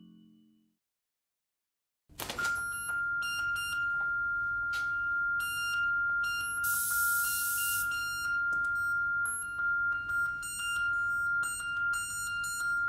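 Silence for about two seconds, then an electronic dance score starts suddenly: a steady high sine-like tone held throughout, overlaid with flickering high beeps and clicks, and about seven seconds in a burst of hiss lasting about a second.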